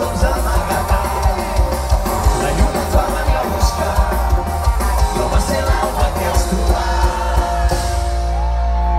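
Live band playing amplified through a big stage sound system, heard from within the crowd: heavy bass and a steady drum beat under singing. Near the end the beat stops and a sustained chord rings on.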